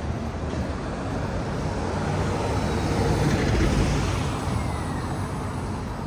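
A road vehicle passing on a city street at night: tyre and engine noise builds to a peak a little past the middle and then fades away.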